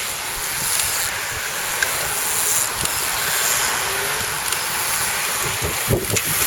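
Wind blowing across the microphone: a steady rushing hiss with uneven low buffeting.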